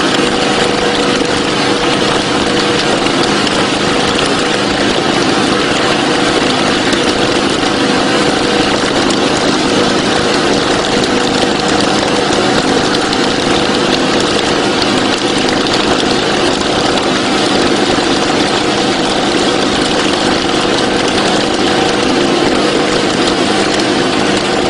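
Boat engine running steadily at a constant speed, a loud even hum with no change in pitch.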